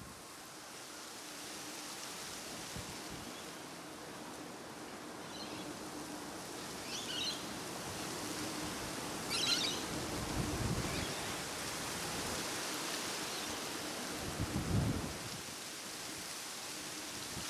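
Wind buffeting the microphone outdoors: a steady rushing hiss with low rumbling gusts about ten and fifteen seconds in. A few short high chirps sound in the middle.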